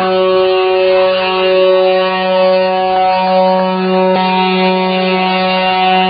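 Background music: a single sustained, droning guitar-like note held at one pitch, with faint shifting parts above it.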